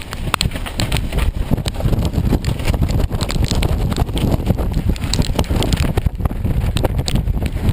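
Hurricane-force wind buffeting a sailboat: a loud, continuous low rumble with many short sharp knocks and rattles throughout.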